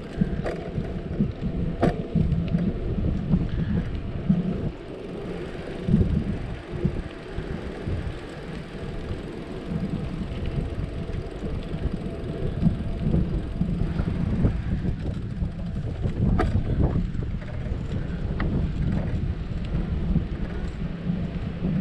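Wind buffeting the camera microphone while riding along behind on a bicycle, a steady, uneven low rumble mixed with tyres rolling on asphalt. A couple of sharp knocks, about two seconds in and again about sixteen seconds in.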